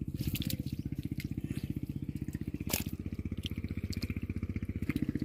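Small engine of an irrigation pump running steadily with an even, rapid low thudding as it drains the pond, with a couple of sharp clicks on top.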